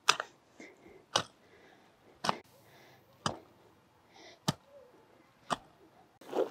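A long-handled hoe chopping into soft, loose dark soil to dig a planting hole: six even strikes about a second apart.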